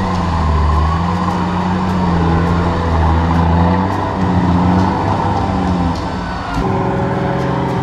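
Nissan Patrol 4x4's engine revving up and down under load as it crawls through a muddy stream bed, its pitch rising and falling every second or so. Near the end the engine note changes abruptly to a steadier tone.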